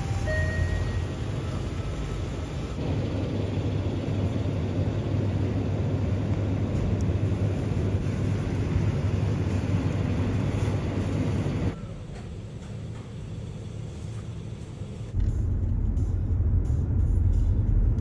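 Steady low rumble of road noise from a moving car. It drops off suddenly about twelve seconds in and comes back louder a few seconds later. A short faint chime of a couple of tones sounds at the very start.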